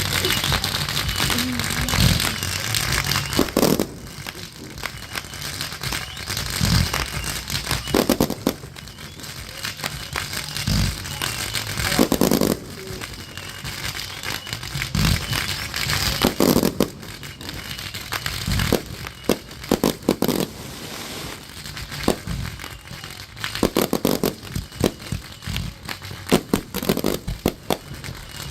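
Backyard consumer fireworks going off: a bang every few seconds, with bursts of crackling between them.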